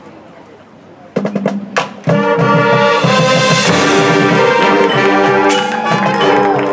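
High school marching band: after a brief lull, a few sharp drum hits, then about two seconds in the full band comes in loud, brass holding chords over the drum line.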